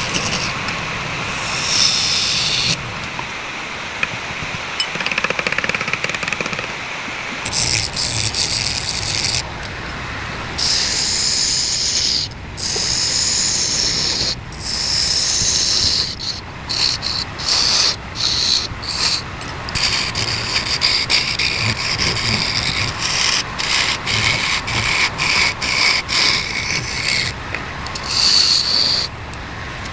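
Wood being turned on a lathe: a tool pressed against the spinning workpiece makes a hissing scrape that starts and stops many times in short passes, over the low running of the machine.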